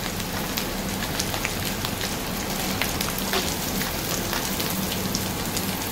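Hot cooking oil sizzling and crackling steadily in a pan, a dense spatter of fine pops.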